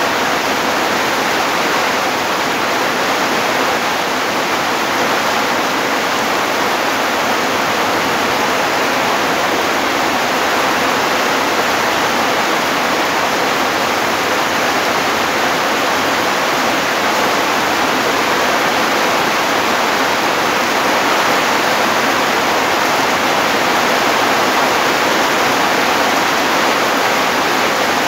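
Steady rain falling, an even hiss with no breaks or changes in level.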